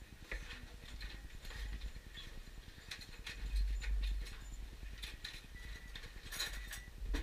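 Knife slicing through a prime rib roast on a wooden cutting board: irregular clicks and knocks as the blade saws through the meat and meets the board, over a low rumble.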